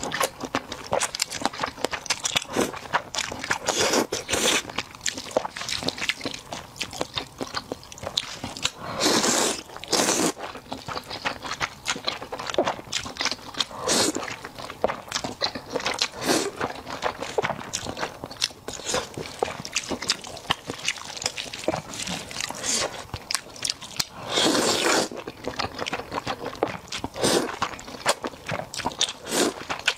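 Close-miked eating of black bean noodles: wet chewing and mouth-smacking clicks throughout, broken by a few longer slurps of noodle strands, the biggest about nine and twenty-four seconds in.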